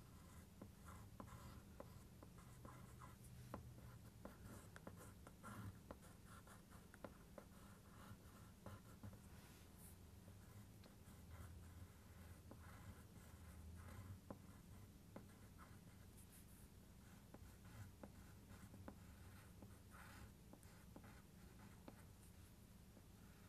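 Faint scratching of a drawing tool on paper in many short, quick strokes, with a low steady hum underneath.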